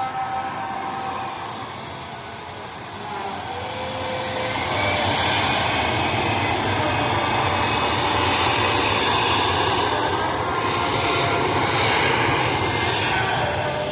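Jet airliner passing close. The engine noise builds over the first few seconds, with a high whine rising in pitch, then holds at a steady loud level.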